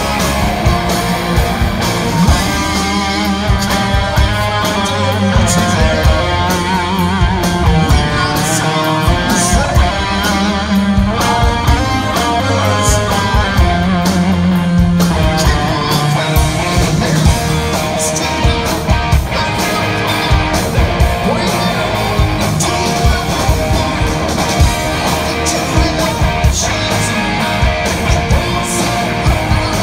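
Live rock band playing loud: electric guitar over bass and a steady drum beat.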